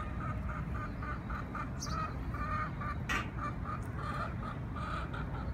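Chickens clucking in a quick, fairly even series, about four clucks a second, over a low rumble of street noise. A sharp click comes about three seconds in.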